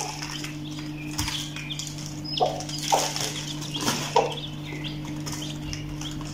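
Young chicks peeping in a cardboard box while an Aseel hen moves and pecks among them, with a few short louder scuffling sounds around the middle. A steady low hum runs underneath.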